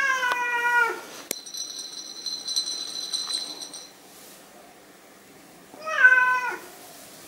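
Long-haired domestic cat meowing twice at a saucer of food held out to it, each meow a short call that falls in pitch: one at the start and one about six seconds in. Between the meows there is a sharp click, then a high steady tone lasting about two and a half seconds.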